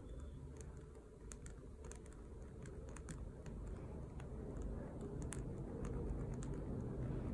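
Faint, irregular light ticks and scratches of a Micron 005 fine-tip pen drawing on a cloth doll's face, over a low steady rumble that slowly grows louder.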